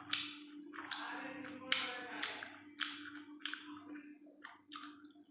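Close-miked eating of chicken curry: wet chewing and lip smacks in quick sharp strokes, about two a second, over a steady faint hum.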